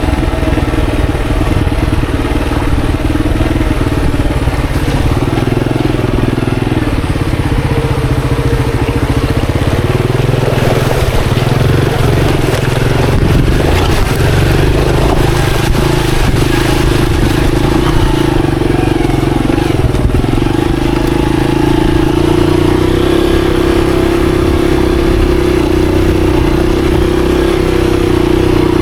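Monarch Axis 125 motorcycle's single-cylinder engine running while riding a trail, its pitch shifting with the throttle. A rougher stretch in the middle is full of rattling knocks, and the engine settles into a steadier, stronger note for the last third.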